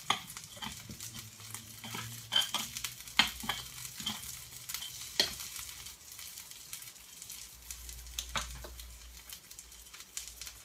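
Künefe frying in its round metal tray on a hot hob: a steady sizzle broken by sharp, irregular crackles.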